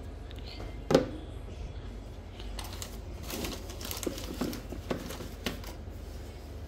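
A hard plastic toy animal knocked down onto a tabletop about a second in, followed by a plastic bag crinkling in a string of short rustles.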